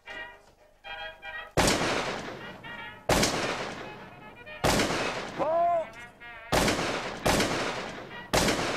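Shotguns fired into the air, six loud shots at uneven intervals, each with a ringing tail, and a voice shouting between them about halfway through.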